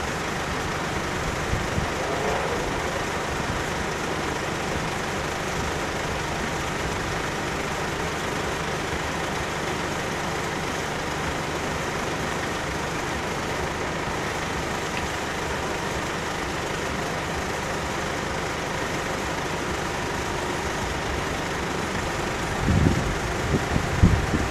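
Steady hum of road traffic, with cars idling while they wait at the closed level crossing. A couple of short low thumps come near the end.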